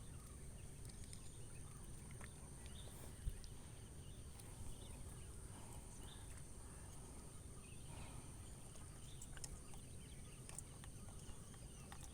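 Faint clicks and taps of a hook being worked out of a caught snakehead's mouth, one sharper click about three seconds in, over a quiet outdoor background with a steady high whine.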